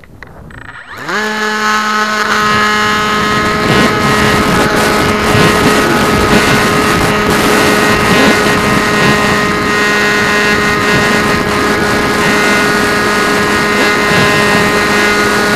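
A radio-controlled model airplane's motor and propeller, heard from a camera on board. About a second in it spools up quickly to a steady high-pitched drone and holds there, over a haze of rushing air.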